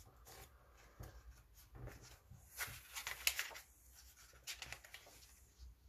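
Faint paper rustling with light taps and crinkles, as a small tarot guidebook is found and its pages leafed through.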